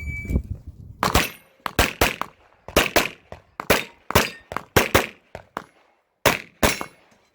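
A shot timer beeps briefly at the start. Then come rapid pistol shots from a competition handgun: about fifteen sharp reports, mostly in quick pairs, with short pauses between the strings.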